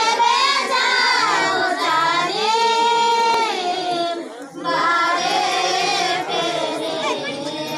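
High-pitched unaccompanied singing in long, held phrases, with a short break about four and a half seconds in.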